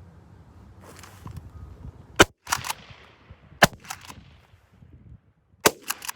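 Three shotgun shots fired at incoming doves, about one and a half and two seconds apart, each followed by a few fainter cracks; the shots miss.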